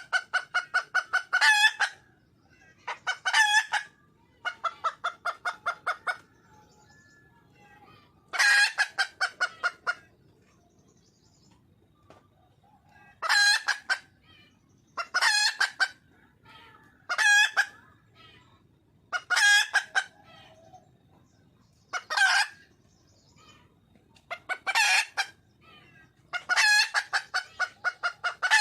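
Wild hen (female red junglefowl) calling for a male: repeated loud bouts of rapid clucking notes, each bout a quick run of about eight to twelve notes lasting a second or two, coming again every couple of seconds.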